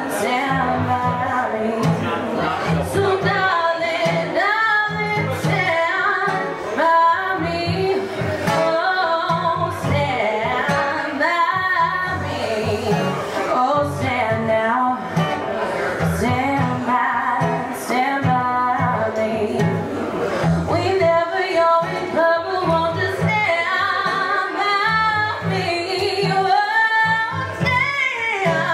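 A woman singing a song into a microphone, accompanied by guitar, with the guitar keeping a steady low pulse underneath.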